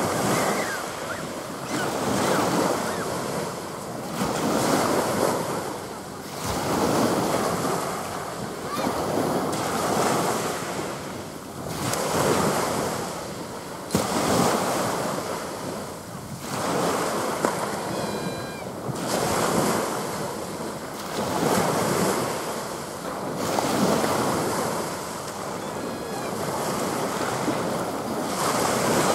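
Small waves breaking and washing on the beach, swelling and fading about every two seconds, with wind buffeting the microphone.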